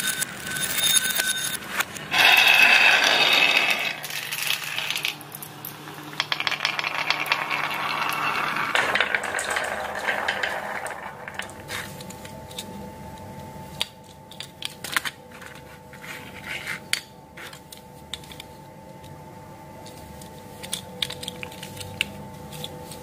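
Marbles rolling and clacking down a wooden marble-run ramp and dropping into a glass bowl, a dense run of clicks and rolling for about the first eleven seconds. After that, quieter scattered clicks and taps as a toy dump truck is handled, over a faint steady hum.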